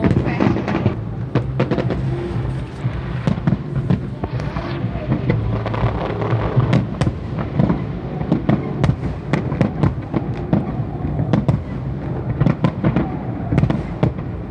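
Fireworks display: a rapid, irregular string of sharp bangs and crackles, several a second, over a steady low rumble.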